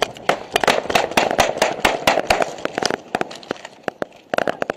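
Small-arms gunfire in a firefight: many rapid, overlapping shots for about three seconds, thinning to a few, then another quick burst near the end.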